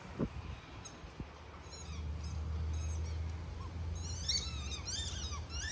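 Rubber squeaky dog toy squeaking again and again as a dog bites down on it. The squeaks start about two seconds in and come quicker near the end, over a low steady hum.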